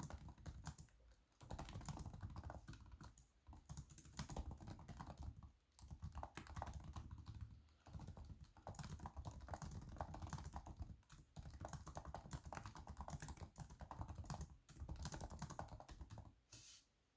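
Typing on the MSI PS42 8RB laptop's built-in keyboard: quick runs of key clicks lasting a second or few, broken by short pauses, with the typing stopping just before the end.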